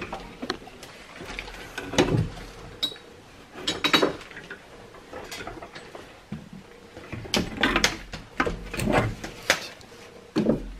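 Scattered metallic clicks, knocks and scrapes of gloved hands working a Saab 9-5's brake disc and parking-brake parts at the wheel hub, with sharper knocks about two and four seconds in and a cluster near the end.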